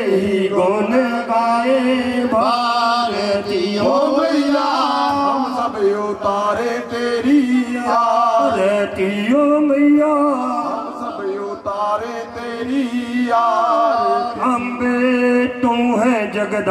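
Men singing a Hindu aarti hymn into microphones in a chant-like melody, with musical accompaniment.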